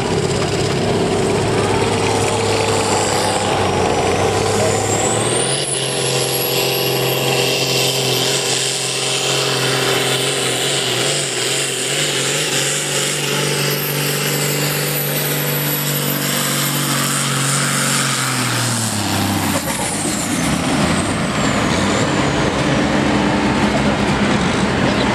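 Farm tractor engine running hard, pulling a weight-transfer sled in a tractor pull. A high-pitched whistle climbs in about four seconds in and holds over a steady engine note, then both drop away about twenty seconds in as the pull ends.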